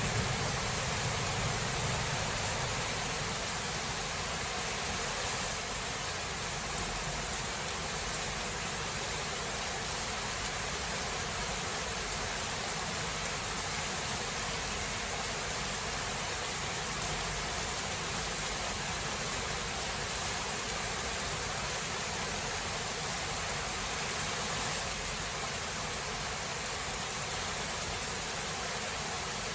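Steady heavy rain, an even hiss, with the last of a low thunder rumble dying away in the first couple of seconds.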